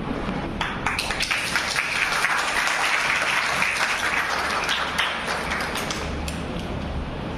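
Audience applauding in a hall. The clapping builds up under a second in and dies away about six seconds in.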